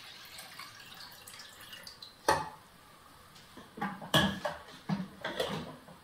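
Clinks and knocks of a drip coffee maker's parts being handled: one sharp knock about two seconds in, then a quick run of clinks as the glass carafe is set into place under the filter holder.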